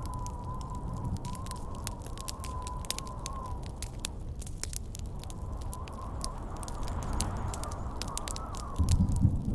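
Campfire crackling with frequent sharp pops, over a thin wavering whistle of howling wind. A low rumble swells in near the end.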